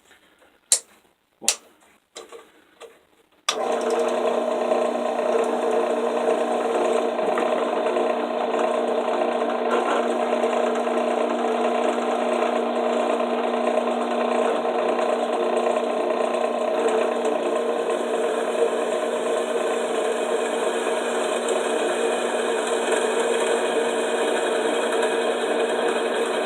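A few sharp metal knocks as the work is clamped, then about three and a half seconds in a drill press starts and runs steadily, drilling 1/4-inch holes through quarter-inch steel flat bar.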